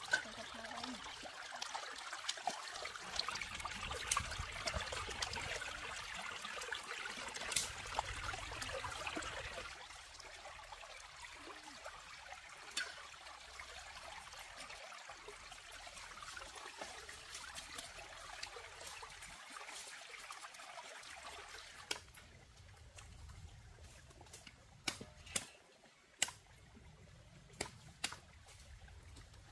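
Shallow stream trickling over rocks, with splashing as fish are rinsed in the water; louder in the first several seconds. Near the end, a wood fire snaps sharply a few times.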